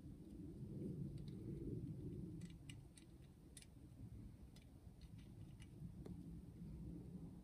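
Faint, light metallic clicks and ticks as a bow saw blade is handled and hooked back onto the saw's frame, over a low background rumble.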